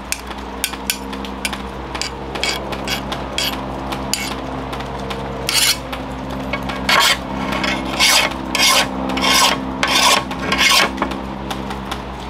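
Steel file scraping along a freshly quenched leaf-spring knife blade in a file test for hardness. It starts with short, quick strokes and moves to slower, longer and louder strokes in the second half. The test leaves the smith unsure whether the blade has hardened.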